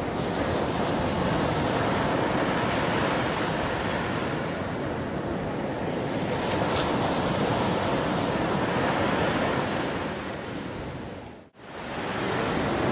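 Ocean surf breaking and washing up a sandy beach, a steady rush of noise. It drops out for a moment near the end, then comes back.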